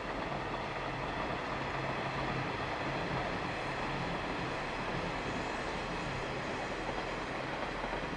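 KiHa 185 series diesel railcars running past at a distance: a steady rolling rumble with a low diesel engine hum.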